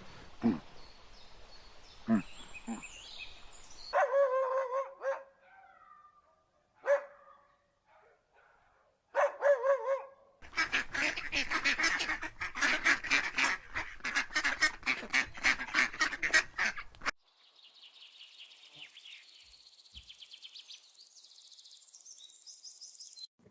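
Geese honking: a few separate calls, then a flock calling rapidly and without a break for about six seconds, followed by faint high-pitched chirping near the end.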